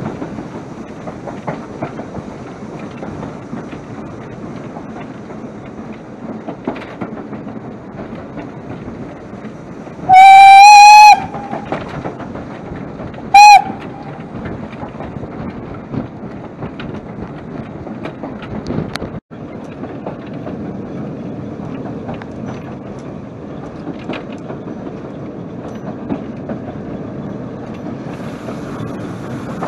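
Steam locomotive on the move, heard from the footplate: steady running noise with rail clatter. About ten seconds in, a steam whistle blows one loud blast of about a second, then a short toot a couple of seconds later.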